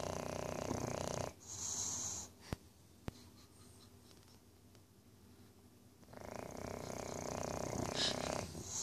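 English Bulldog snoring in its sleep: two long snores about five seconds apart, each followed by a short, high hiss of breath. Two small clicks sound in the pause between them.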